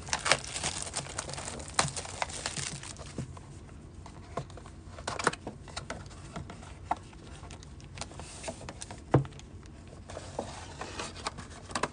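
Plastic shrink wrap crinkling and tearing as a sealed trading-card box is unwrapped, densest in the first few seconds. Then come sparser clicks and rustles as the cardboard box is opened and its foam insert handled.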